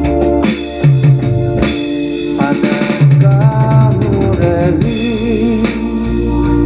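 Drum kit played along with a band recording: kick drum, snare and rimshot strokes over sustained keyboard chords and bass.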